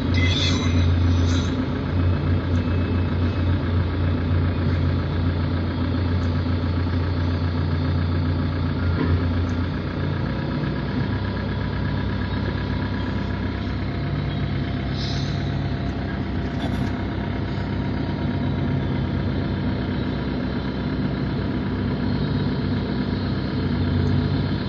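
Heavy diesel engines of large earthmoving machines running steadily at work. The engine note shifts about ten seconds in.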